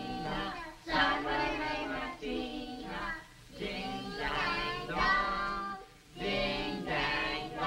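A group of children singing a song together, line by line, with short breaks between the phrases.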